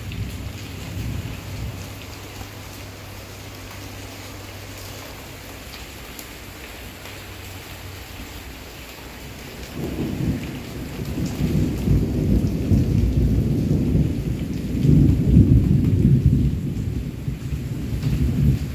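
Steady rain falling on trees and leaves. About ten seconds in, a long roll of thunder rises, is loudest a few seconds before the end, then begins to fade.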